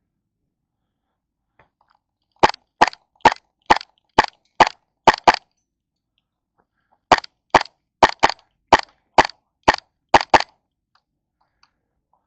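Airsoft gun firing single shots in two strings, about eight and then nine sharp shots at roughly two a second, with a pause of nearly two seconds between the strings.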